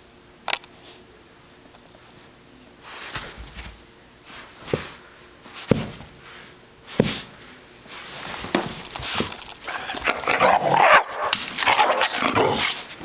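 A puppy sneezing: a handful of separate short, sharp sneezes over the first seven seconds, then a louder, busier run of them from about eight seconds in.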